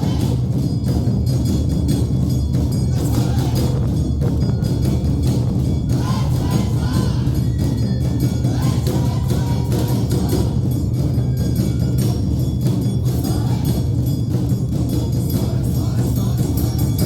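Awa Odori festival band music: drums beating steadily under the bright, rapid clang of a hand gong (kane), with a pitched melody from flute and shamisen above.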